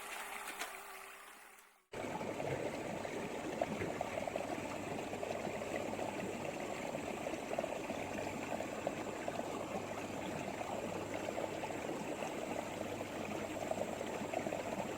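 Steady rush of running water. A short fading sound gives way to it with an abrupt break about two seconds in.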